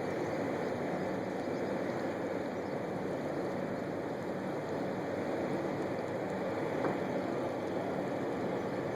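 Steady engine rumble of a boat on the river, with a faint low hum running under it and one small click near the end.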